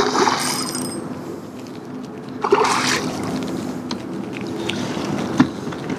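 Water splashing as a hooked pink salmon thrashes at the surface beside a kayak, in two bouts: one right at the start and another about two and a half seconds in. A short knock sounds near the end.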